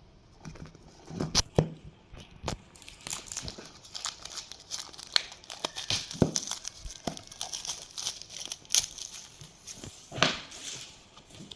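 Packaging being handled and crinkled, a run of irregular crackles and rustles that thickens after a few seconds, with a louder rustle near the end.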